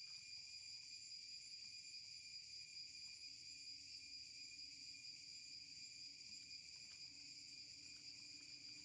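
Faint, steady chorus of insects buzzing in high, unbroken tones. A faint low hum joins about three seconds in.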